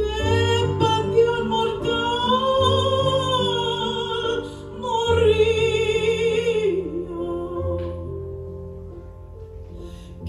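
A woman singing long, held notes with a wide vibrato in two phrases over sustained digital piano chords. The voice ends with a falling glide about seven seconds in, and the piano chords ring on, fading.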